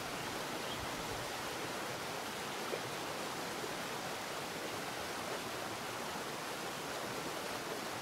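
Steady, even rush of the Gamla waterfall, a thin 51-metre fall splashing onto basalt boulders.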